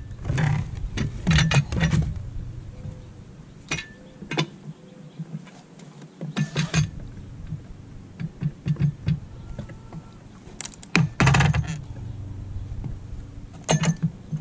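Pallet deck boards being pried off with a homemade no-weld steel pallet breaker: the wood cracks and the nails pull free. Sharp cracks and clanks come in clusters, the loudest a few seconds before the end.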